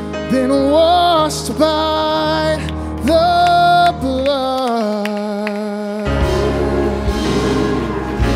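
Live worship band playing, a singer's voice held and sliding over bass guitar and acoustic guitar. The bass drops out for about a second past the middle, then comes back in.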